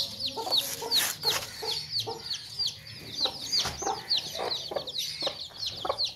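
A brood of young chicks peeping without a break, high short falling chirps several a second, over the low clucking of their mother hen.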